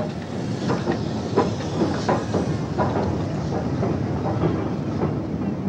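Steam-hauled passenger train, headed by LMS Black Five 4-6-0 No. 5407, rolling past along a station platform: a steady rumble with clicks from the wheels over the rail joints every half second or so.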